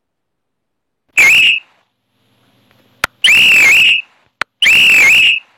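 Police whistle sound effect from a prank app: three shrill blasts, a short one about a second in, then two longer ones, each dipping briefly in pitch before rising again.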